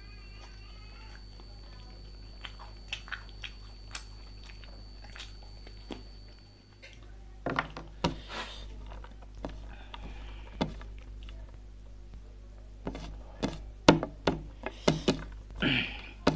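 Close-miked chewing and mouth sounds of someone eating: a few soft clicks at first, then from about halfway many louder wet smacks and clicks, over a steady low electrical hum.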